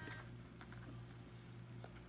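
Quiet room with a steady low electrical hum, a faint high tone that cuts off just after the start, and a couple of faint light taps, from handling modelling clay on a plastic plate.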